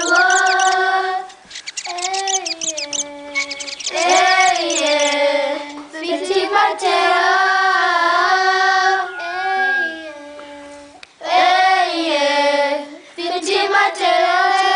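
A child singing a song, one voice holding long notes in phrases with short breaks between them.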